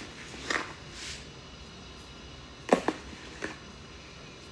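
Sugar being scooped into a mixing bowl: a few short scrapes and light knocks of the scoop, with the sharpest knock a little under three seconds in.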